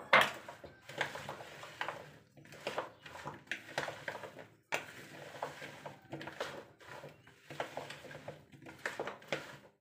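A hand tossing and turning cured black olives, dressed with oil and dried herbs, in a bowl: a run of irregular soft wet clicks and rustles as the olives knock against each other and the bowl. A faint low hum runs underneath.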